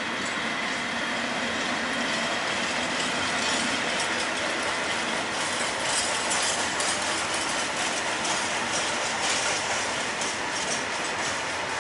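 Freight train passing close by: the locomotive goes past at the start, then covered hopper wagons roll by with a steady rumble and rattle of wheels on the rails, with sharper clicking and clanking growing in the second half.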